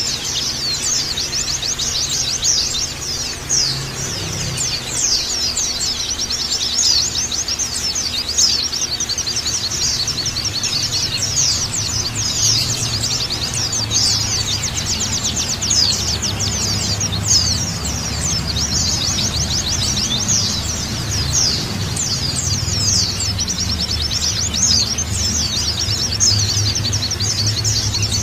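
Many pleci (white-eyes) chirping and twittering at once in a dense, unbroken high-pitched chorus, with a faint low hum underneath.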